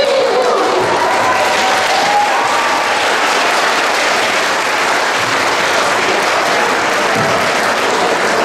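Audience applauding steadily, with a few voices calling out over the clapping in the first couple of seconds.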